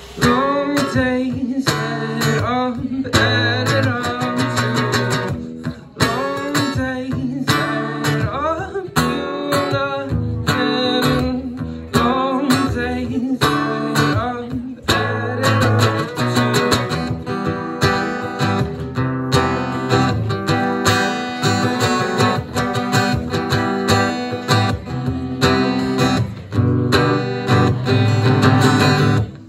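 Acoustic guitar strummed in a steady rhythm through an instrumental passage of the song.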